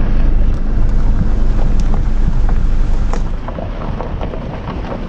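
Car driving slowly over a rough gravel campground road: a steady low rumble with scattered small clicks, easing a little about three seconds in.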